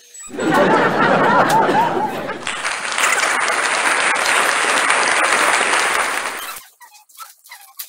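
Applause with cheering and whoops. It starts suddenly, runs for about six seconds well above the level of the room, then cuts off abruptly.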